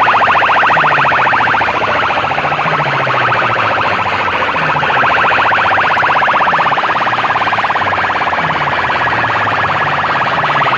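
Loud DJ music played through a stack of horn loudspeakers: a siren-like electronic tone pulsing very rapidly over a deep bass note that repeats roughly once a second.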